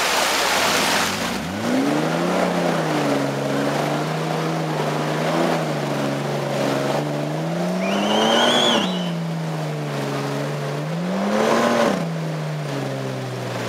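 Off-road 4x4's engine pulling under load up a steep slope, revving up in four surges over a steady running note, the biggest about eight seconds in. A brief high wavering whistle sounds over it at that point.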